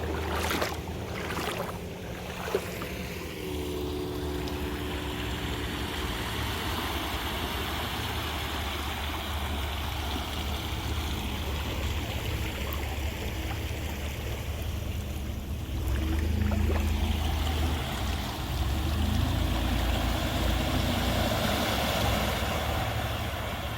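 Flowing floodwater rushing steadily over a low rumble, growing a little louder about two-thirds of the way in.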